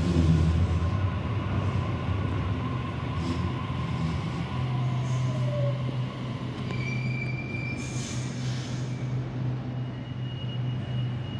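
Sydney Trains Waratah Series 2 electric train pulling into the platform and slowing to a stop, its motor whine falling in pitch. The train then stands with a steady low hum, and there is a brief hiss about eight seconds in.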